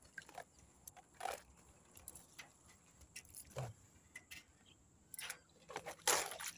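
Fishing net being handled: irregular rustles, clicks and knocks, the loudest a longer rustle about six seconds in.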